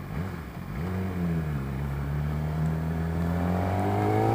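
Yamaha R6 inline-four with an Akrapovic exhaust riding at low revs in slow traffic, with a brief dip in the engine note in the first second, then the revs climb steadily from about three seconds in as the throttle opens.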